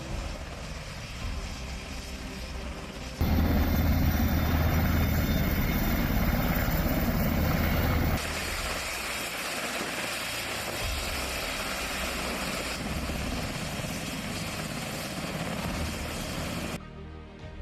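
UH-60 Black Hawk helicopter rotor and engine noise in several spliced clips that change abruptly, loudest from about three to eight seconds in.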